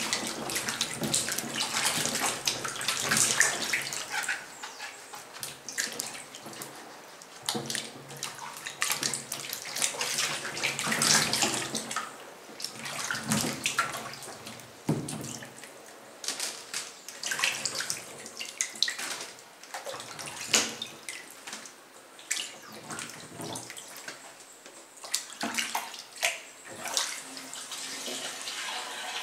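Water sloshing and splashing in a water-filled laundry sink as hands rub and turn a batch of red fruits to wash them, with irregular sharp splashes.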